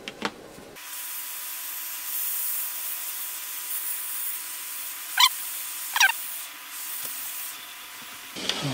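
A steady hiss that starts and stops abruptly, with two short sharp chirps about five and six seconds in and a couple of clicks at the very start.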